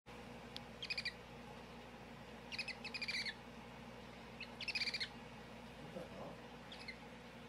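Baby hedgehog squeaking: four short runs of rapid, high chirping squeaks, about two seconds apart, the last one faint.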